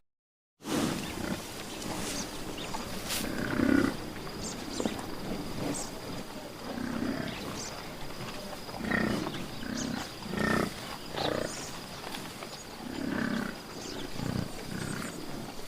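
A large animal giving a series of short, low grunting calls, one every second or two, over a faint steady high-pitched whine.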